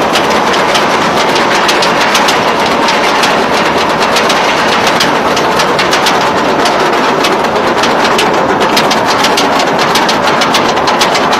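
Roller coaster train climbing a chain lift hill, the anti-rollback dogs clacking rapidly at several clicks a second over a steady rushing noise.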